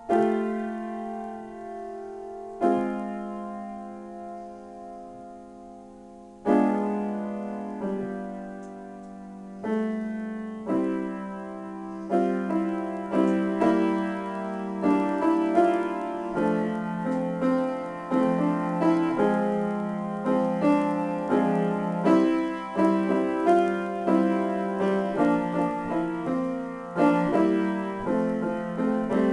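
Solo grand piano improvisation. For the first twelve seconds or so, sustained chords are struck a few seconds apart and left to ring; after that the playing turns busier, with a steady rhythm of several notes a second.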